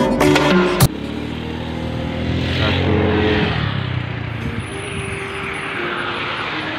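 Background music cuts off about a second in. It gives way to road traffic noise: a passing vehicle's engine hum fades out a few seconds later over a steady rushing noise.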